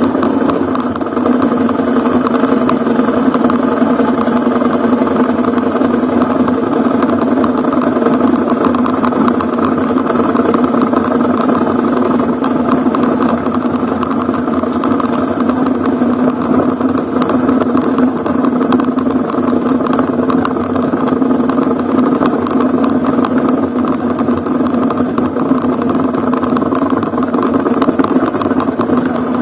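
Ducati Hypermotard's V-twin engine running steadily at an even pitch as the motorcycle is ridden along a dirt forest road.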